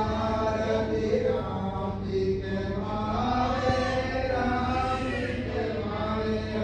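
Hindu puja mantras chanted in long held tones over a steady low hum.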